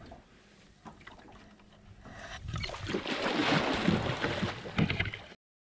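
Large northern pike thrashing at the surface in a landing net, churning and splashing the water hard for about three seconds; the sound cuts off suddenly near the end.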